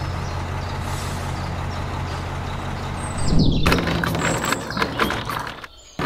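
Small DC motor of a toy concrete mixer running steadily with a low hum after being switched on. About three seconds in, a louder clattering and rattling joins it, then dies away just before the end.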